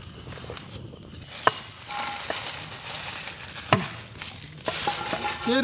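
Dried red chillies poured from a wicker basket into a hot black iron kadai: a dry rustling clatter starting about a second in, with a few short clinks against the pan.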